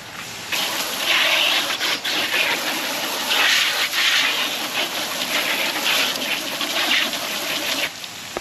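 Water spraying hard onto freshly cut catfish fillets to rinse them, a rushing spray that surges unevenly. It starts about half a second in and cuts off near the end.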